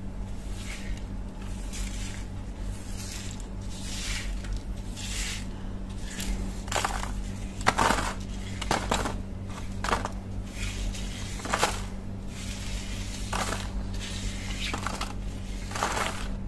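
Bristle paintbrush sweeping dry rust flakes across a wooden workbench: a series of short brushing swishes with crackling and scraping of the flakes, the strokes getting louder about halfway through. A steady low hum runs underneath.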